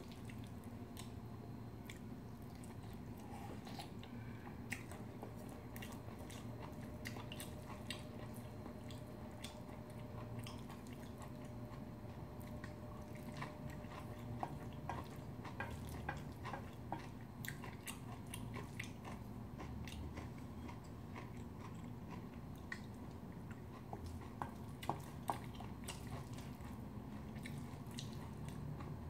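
A spoon stirring and scraping rice and vegetables in a stainless steel bowl, mixing bibimbap: scattered small clicks and taps against the metal with soft squishing of the food.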